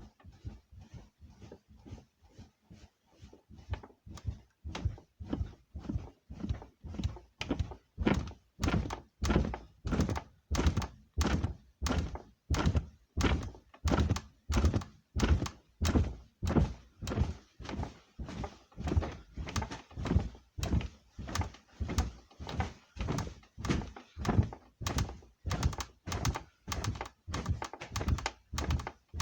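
A bed creaking and knocking loudly in a steady rhythm, about two strokes a second. It starts faint and grows louder over the first several seconds.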